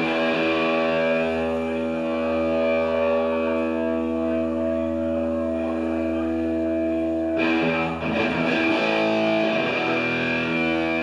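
Distorted electric guitars through amplifiers sounding a held, ringing chord, with no drums; the chord changes about seven and a half seconds in, then again a moment later.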